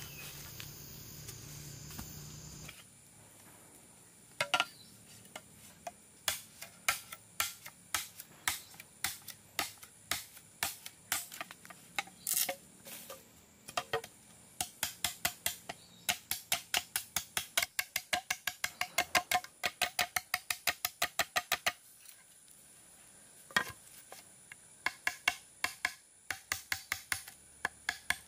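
A long knife blade chopping into a green bamboo tube: runs of sharp knocks at about two to three strokes a second, many with a short ringing note, starting a few seconds in and pausing briefly near the end before resuming.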